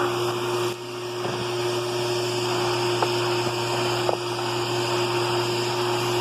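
Vacuum cleaner motor running steadily with a constant hum and airflow hiss, with two faint clicks a few seconds in as debris is picked up.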